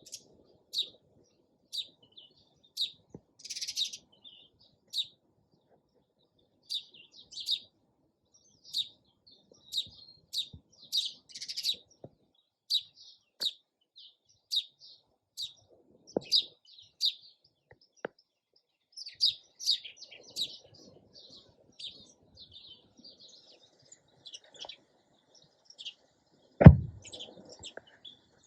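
Sparrows chirping: short, high chirps repeated roughly once a second, sometimes in quick clusters. A single sharp thump near the end is the loudest sound.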